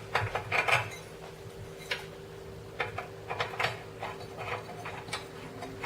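Light bulb being screwed by hand into a light fixture's socket: irregular little clicks and scrapes as the bulb's threaded base turns, in small clusters, over a faint steady hum.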